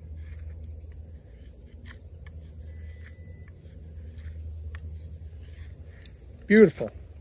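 Steady high-pitched insect chorus, like crickets, with a few faint ticks and scrapes as a knife blade shaves thin curls off a stick of wood.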